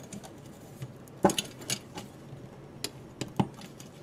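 Light clicks and clinks of the clear crystal-like pieces and small bulbs of a Christmas tree star being handled. A few sharper clicks stand out, the loudest about a second in and another near the end.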